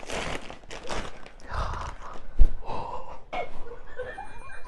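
Plastic carrier bag rustling and crinkling as a gift is pulled out of it, with breathy gasps of surprise and a single thump near the middle.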